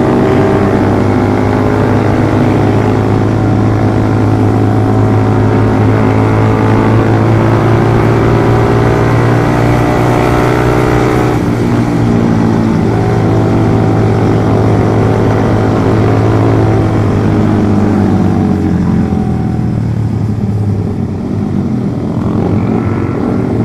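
Suzuki GSX 150's single-cylinder engine running through a Pro Liner Short aftermarket exhaust while riding at a steady pace. About seventeen seconds in the rider eases off and the engine note falls, then it picks up again near the end.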